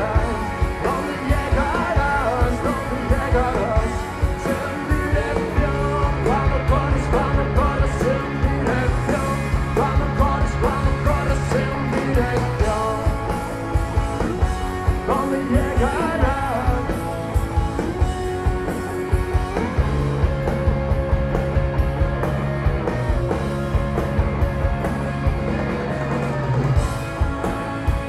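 Rock band with electric guitars, bass guitar and drum kit playing live, with singing over a steady beat.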